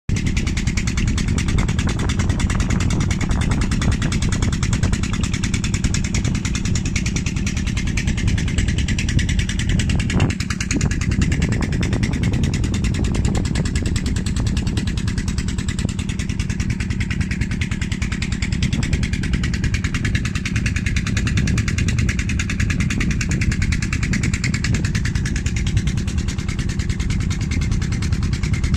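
Wind rumbling on the microphone: a steady low rumble with a fainter hiss above it, and a brief knock about ten seconds in.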